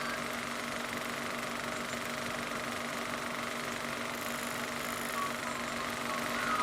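A steady mechanical hum, like an engine or motor running, with a few faint short chirps in the second half.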